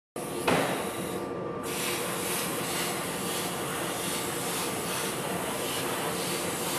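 Plasma cutting torch arc hissing steadily as it cuts sheet metal, with a sharp burst about half a second in as the sound starts.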